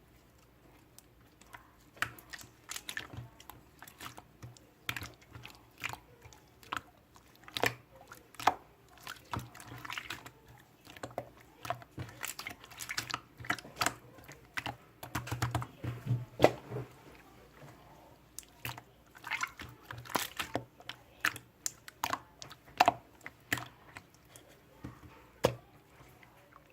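Irregular sharp clicks and crunchy taps, a few a second, starting about two seconds in.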